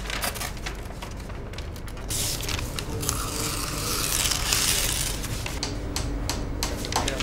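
Paper being handled: sheets lifted and rustled with small clicks and scrapes, and a longer stretch of rustling from about two seconds in to about five seconds.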